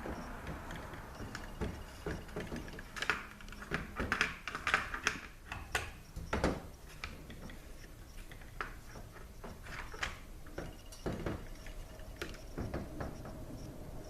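Scattered light clicks and knocks of parts being handled as a transmission lead frame is positioned and fitted, with a busier run of sharper clicks from about three to seven seconds in.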